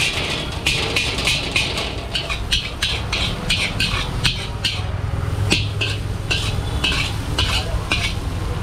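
Metal spatula scraping and clanking against a large iron wok as noodles are stir-fried, about three or four strokes a second, pausing briefly about five seconds in. A low steady rumble runs underneath.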